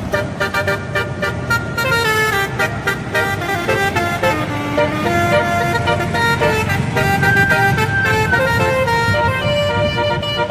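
An Indonesian bus's telolet horn playing a melody of shifting notes, several horn tones sounding together and changing every fraction of a second, over a low rumble of engine and road noise.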